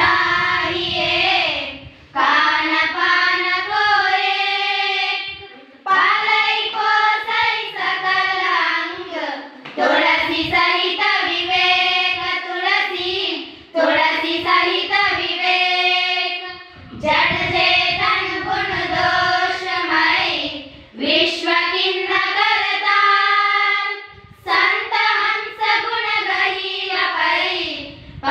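A group of teenage schoolgirls singing dohas (rhyming couplets) together in unison, unaccompanied. The singing comes in about eight phrases of three to four seconds each, with a short breath between them.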